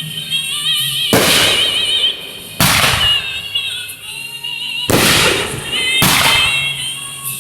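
Fireworks going off: four loud bangs about a second in, two and a half seconds in, near five seconds and near six seconds, with high warbling whistles between the bangs.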